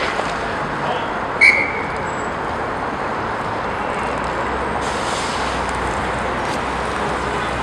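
Steady noise of an inline roller hockey game in play, skate wheels rolling on the rink floor, with one short, high whistle blast about a second and a half in.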